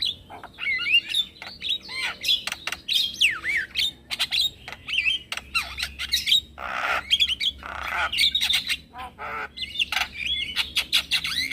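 Male Javan myna (jalak kebo) singing a busy, chattering song of rapid clicks, whistles that glide up and down, and harsh rasping squawks, with two longer rasping calls in the middle.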